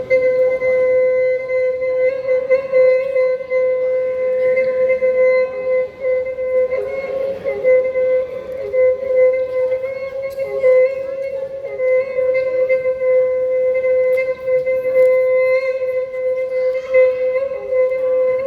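Traditional Karen horn blown, holding one steady note with a thin, wavering edge, dipping briefly about six seconds in.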